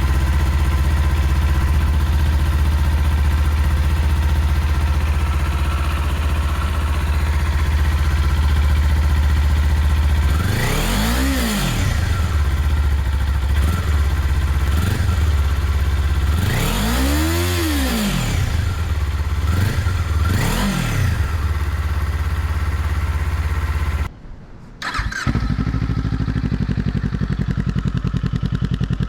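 Kawasaki Z400 parallel-twin engine idling through its exhaust, then blipped four times, each rev rising and falling back to idle, the third the highest. After a brief gap it idles again with a different tone.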